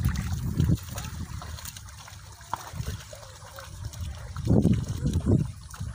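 Water trickling and sloshing in a flooded, muddy paddy field, under a low rumble that grows louder near the end.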